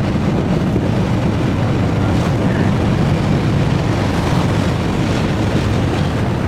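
A 1966 Triumph Spitfire's 1147cc four-cylinder engine running at a steady cruise, mixed with wind and road noise from the moving car.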